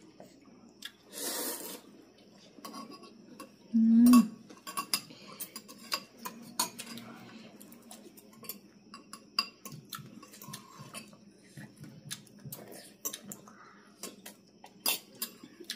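Forks and spoons clinking and scraping against ceramic bowls of noodle soup as it is eaten, in scattered light clicks. A noisy slurp of noodles comes about a second in, and a short low hum from one of the eaters about four seconds in.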